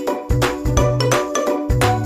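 Background music: a bright, bouncy tune with a steady beat, chime-like high notes and a bass line.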